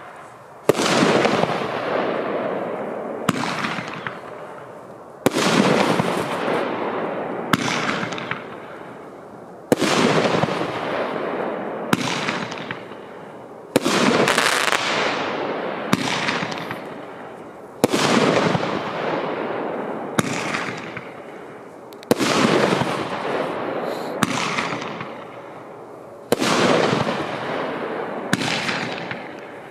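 30 mm Roman candle firing shot after shot, seven in all, about one every four seconds. Each shot is a loud bang with a long noisy tail that fades away, and a smaller sharp crack comes about two seconds after each.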